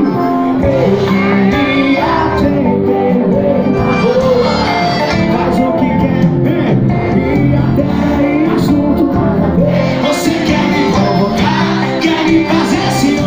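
Loud live band music with a singer, heard from within the crowd in front of the stage.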